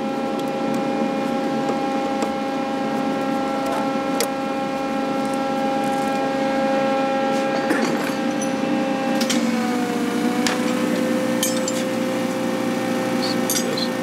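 Steady mechanical hum with a whining tone from the running engine bay of a 1978 Rolls-Royce Silver Shadow II being worked on for its air conditioning. The whine dips in pitch briefly a little past the middle. A few light metallic clicks of tools on fittings are heard.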